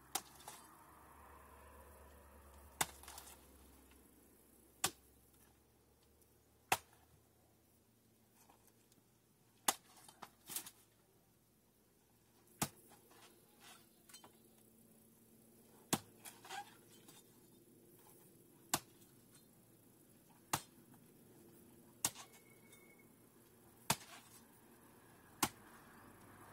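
Sharp chopping strikes of a hand tool hacking into thick, spiny plant growth, one blow every two seconds or so, now and then two in quick succession.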